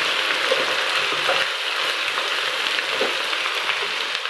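Hot oil sizzling steadily in a karahi as chopped ginger and garlic fry with bitter gourd.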